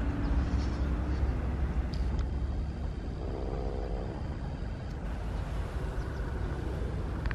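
Steady low rumble with a hiss of wind and road noise, as from a moving vehicle.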